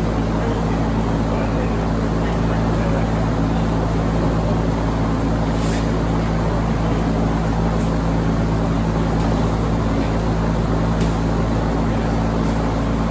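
A steady low mechanical drone, unchanging throughout, with a few faint slaps of boxing gloves striking focus mitts and pads.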